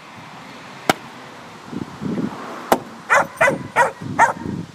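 Two sharp sledgehammer strikes, then about a second in from the second strike a puppy yips several times in quick succession, barking at the banging.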